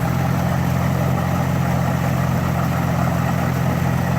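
2003 GMC Envoy engine idling steadily with the battery disconnected, running on a newly fitted alternator alone. It keeps running rather than stalling, the sign of a good alternator.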